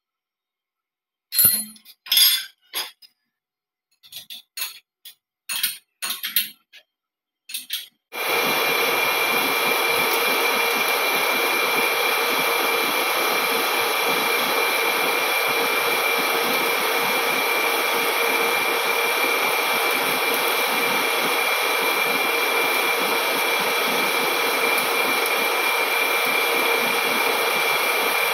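Several short metallic clinks and knocks, then about eight seconds in a large lathe starts a steady machining noise with a high whine, turning and facing a heavy forged steel disc.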